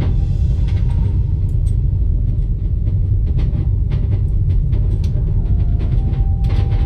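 Steady low rumble of a train in motion as heard inside a railway carriage, with occasional light clicks and rattles.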